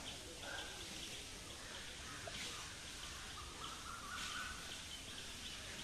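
Outdoor ambience with birds calling: a short high chirp repeated two or three times a second, a brief note about half a second in, and a longer held note about three and a half seconds in.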